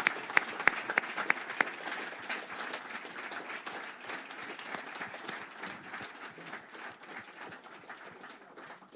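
Audience applauding, with a few sharp, close claps standing out in the first two seconds, then fading gradually until it has nearly died away at the end.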